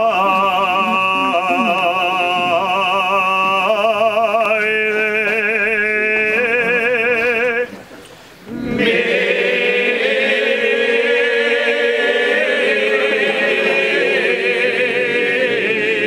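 Rosarieros singing a Holy Week copla unaccompanied: one voice with a strong, wavering vibrato for about seven seconds, then after a brief pause a chorus of voices comes in together.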